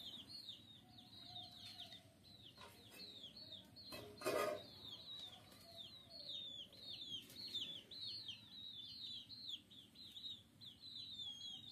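A bird chirping over and over, short high falling peeps about three a second, with a single sharp clatter about four seconds in.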